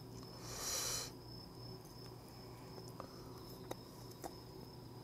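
Faint steady cricket chirring, with a short breath about half a second in. A few light clicks of metal tongs and chopsticks handling food come later.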